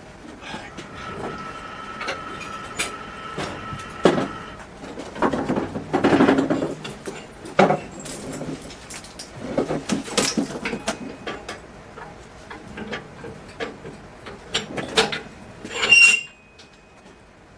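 Irregular metal clanks, knocks and scrapes from steel panels and tools being handled on a bare car chassis. A steady whine runs through the first few seconds, and a sharp clang with a ringing metallic tone comes near the end.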